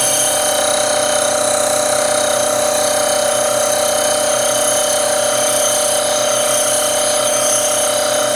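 Variable-speed 8-inch bench grinder running at its lowest speed, grinding a steel drill shank held against its wheel: a steady whine with a grinding hiss.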